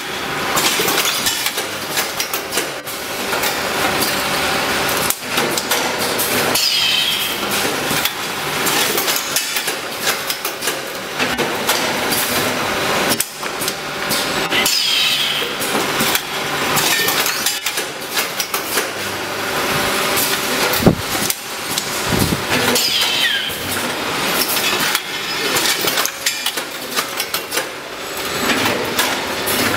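Automatic rotary vacuum packing machine for rice running: a steady mechanical clatter of clicks and clanks from its turntable and pneumatic grippers, with a brief high falling squeal about every eight seconds and one sharp knock about two-thirds of the way through.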